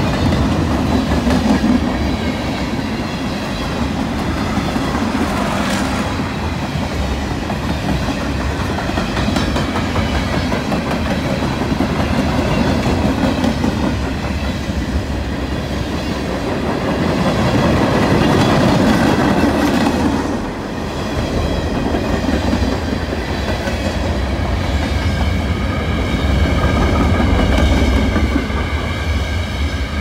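Freight cars of a long manifest train rolling past close by: a steady rumble of wheels on rail, swelling and easing slowly in loudness.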